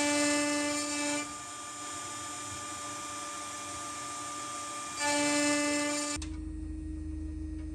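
CNC router spindle whining steadily while its endmill mills aluminium, with a high hiss of the cut, loudest for the first second and again about five seconds in. The cut runs smoothly without chatter at about 0.42 mm depth. About six seconds in the sound switches abruptly to a steadier, lower hum.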